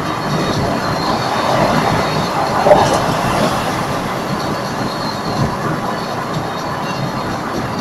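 Steady tyre and wind noise inside a car cruising at motorway speed, with one brief louder bump about two and a half seconds in.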